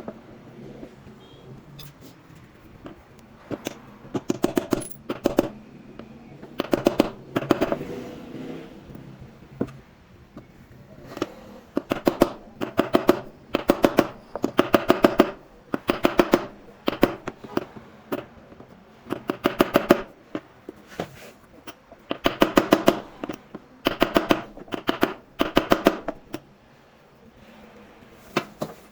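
Short bursts of rapid, sharp metal knocks, several strikes at a time, repeated every second or two. The knocks come from work on a washing machine's drum and bearing assembly.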